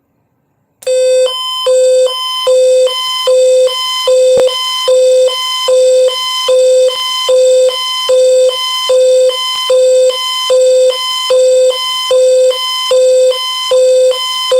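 Electronic alert tone of an AMBER Alert (Child Abduction Emergency) relay heard over AM radio: a loud beeping pattern that starts suddenly out of silence about a second in and repeats about once a second.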